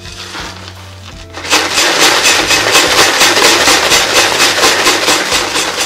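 Quartz sand rattling and hissing inside a cardboard box as the box is shaken in a quick, even rhythm, starting about a second and a half in. The sand is scouring the glass fixed in the bottom of the box to etch it.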